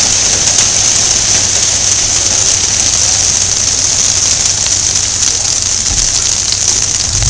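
A hailstorm with heavy rain pelting down: a dense, steady hiss with many small clicks of hailstones striking.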